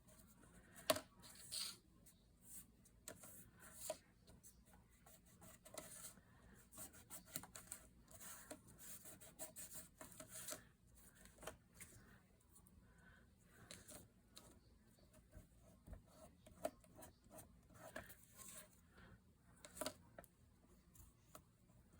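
Faint, intermittent rubbing and scratching of metallic luster wax being worked onto paper or card, with scattered small clicks and taps of handling, the sharpest about a second in.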